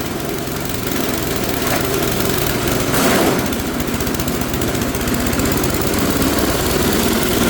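Engine-driven chopper-grinder running steadily while shredding coconut fronds, with a louder rasping surge about three seconds in.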